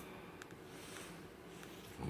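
Quiet pause between a sleeping man's loud snores: only faint breathing and room hiss, with a faint click about half a second in.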